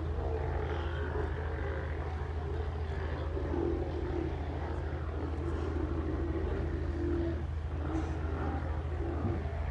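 Many sea lions on a haul-out calling again and again, their calls overlapping, over the steady low hum of a boat's motor.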